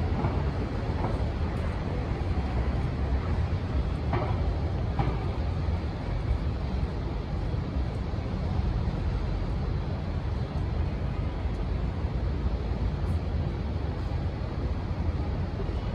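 Steady low rumble of city street traffic, with a couple of faint brief higher sounds about four and five seconds in.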